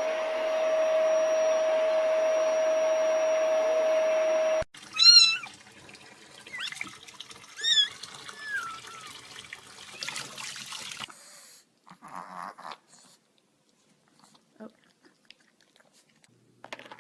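A steady hiss with a constant humming tone cuts off suddenly about four and a half seconds in. Then a cat meows about three times, the first loudest, followed by a few faint scattered sounds.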